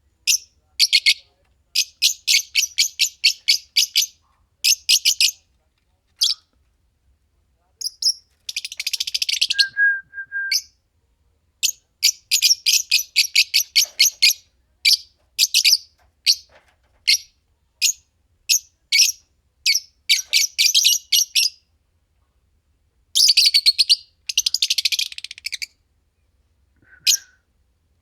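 Pair of Fischer's lovebirds chirping: rapid runs of sharp, high chirps lasting a second or two each, with short pauses between, and one brief lower whistled note about ten seconds in.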